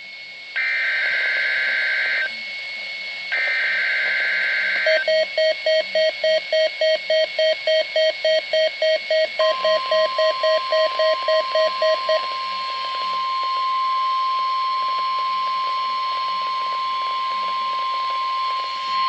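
NOAA Weather Radio Required Weekly Test signal: two screeching bursts of SAME digital header data, then rapid beeping at about three beeps a second. The steady 1050 Hz warning alarm tone comes in about halfway through, overlaps the beeping for a few seconds, and runs on alone to the end.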